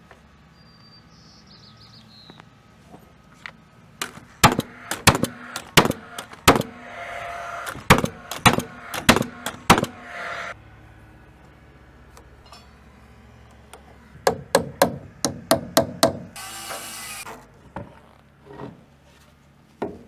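Paslode cordless framing nailer firing a rapid run of sharp shots into a wooden collar tie and rafter, about four seconds in, then a second quick run about fourteen seconds in, with a steady rushing noise after each run.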